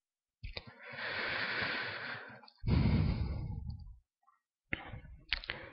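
A man breathing close to the microphone: a long breath, then a heavier breath out like a sigh. A few faint clicks follow near the end.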